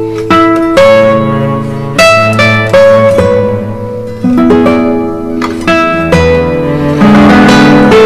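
Background music: a plucked acoustic guitar playing a melody of single notes that each strike sharply and ring on.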